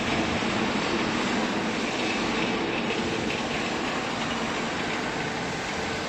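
Steady machinery noise of a factory workshop, an even rumble and hiss without a clear rhythm.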